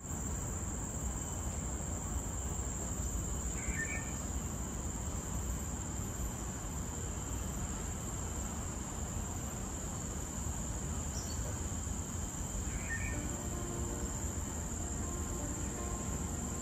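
Steady, high-pitched drone of insects over a low rumble of outdoor noise, with a short chirp twice.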